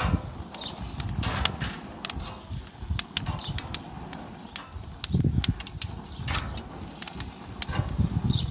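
Metal kitchen tongs clicking and scraping against the metal grill grates as garlic scapes are turned, in many short irregular clicks, with patches of low rumble in between.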